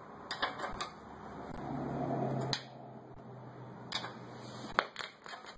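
Scattered metallic clicks and clinks of hand tools as a combination wrench is fitted onto a car's tie rod end castle nut, with a low steady hum underneath through the middle seconds.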